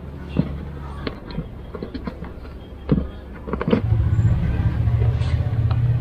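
Sharp plastic clicks and taps as a dashcam power cable is pressed in along the door weatherstrip and dashboard trim with a plastic trim tool, over a steady low vehicle-like hum that grows louder about two-thirds of the way through.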